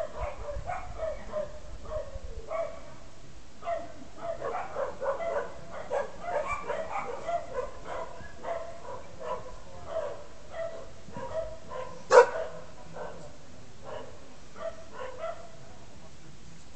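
A dog barking in irregular runs of short barks, thickest in the middle, with one much louder sharp sound about twelve seconds in.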